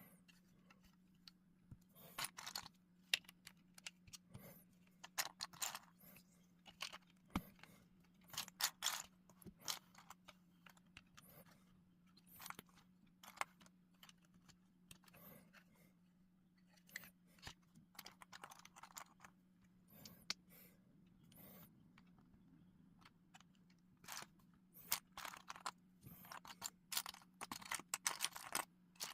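LEGO plastic bricks clicking and rattling as pieces are handled and pressed together: irregular sharp clicks and small rustles, busiest toward the end, over a low steady hum.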